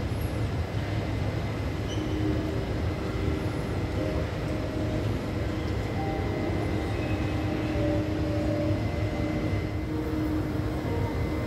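Steady low rumble of a large airport terminal hall, with soft held music notes that shift slowly over it: the calm music that plays with the Petal Clouds kinetic sculpture.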